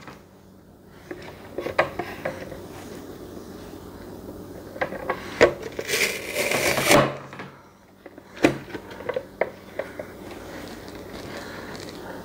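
Push-down vegetable dicer cutting tomato pieces: sharp clicks and knocks as the lid is pressed down through the blade grid, with a longer scraping crush about six seconds in.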